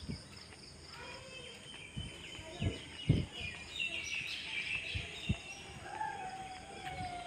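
Outdoor ambience with small birds chirping, busiest around the middle. There are a few low thumps, from the walking camera, a little after the start. A long, gently falling tone comes near the end.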